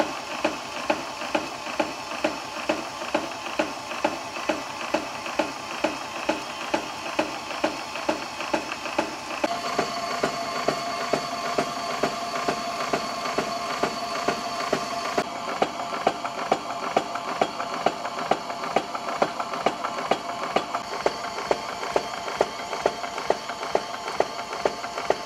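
Homebuilt power hacksaw, driven by a surplus grinder's motor, running: a steady motor whine with a regular knock on each stroke of the blade frame, about two strokes a second.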